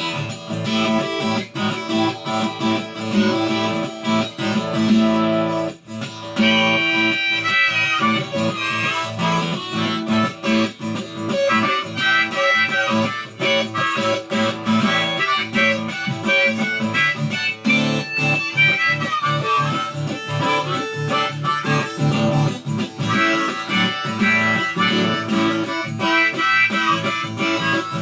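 Instrumental break of a folk-blues song: a Takamine acoustic guitar strummed steadily while a harmonica in a neck rack plays the melody.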